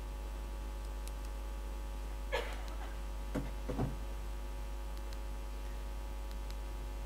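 Steady low electrical hum from the room's sound system, with a few faint short sounds, like quiet murmurs, about two and a half to four seconds in.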